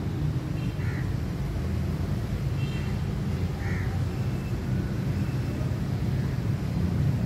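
Crows cawing a few short times, clearest about a second in and again near four seconds, over a steady low rumble.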